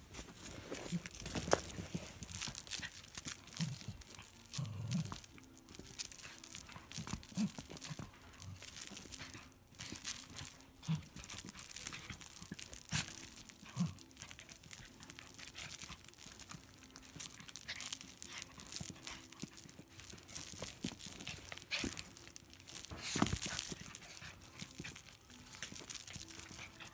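A small dog tugging and chewing on a rubber chicken toy held in a person's hand: irregular rustling, crinkling and scraping, with scattered brief low sounds.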